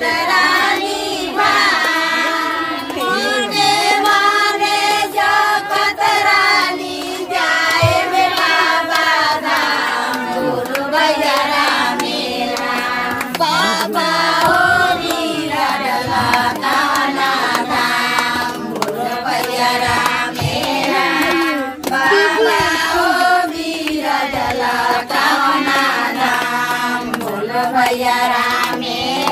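A group of women singing a devotional song together in chorus, with hand-clapping along to it.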